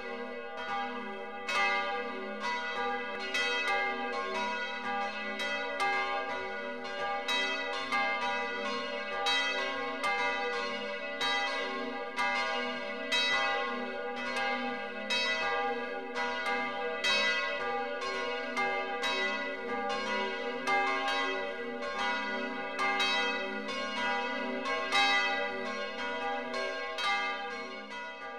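Several church bells ringing together in a steady peal. Their strikes overlap at roughly two a second, and the peal dies away at the end.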